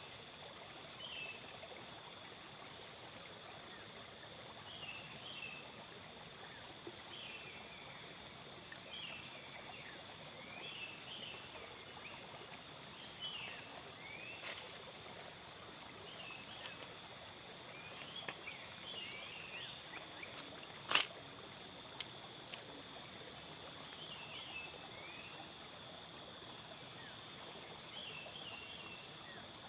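Outdoor insect chorus: a steady high-pitched drone with bouts of rapidly pulsed cricket-like trills every few seconds, over scattered short bird chirps. A single sharp click about two-thirds of the way through.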